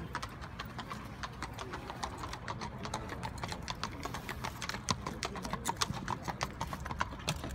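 Hooves of two horses walking on stone paving, a quick uneven clip-clop that grows louder as the horses come closer.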